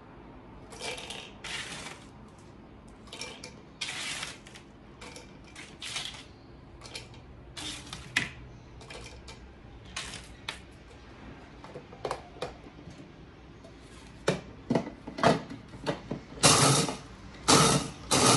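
Crisp toasted bread cubes being gathered off a parchment-lined metal baking tray and dropped into the plastic bowl of a Tefal mini chopper: irregular light clatters and rustles, with a run of louder knocks and scrapes near the end.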